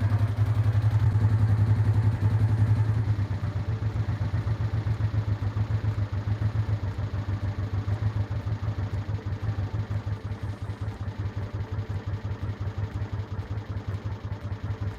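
Honda Deauville NT650V's V-twin engine idling unevenly with the fuel cut off, running its carburettors dry on the way to stalling. Its note drops and weakens after about three seconds.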